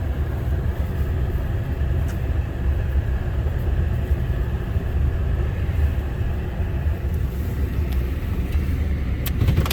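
A vehicle driving down a snow-covered driveway, with a steady low rumble of engine and road noise.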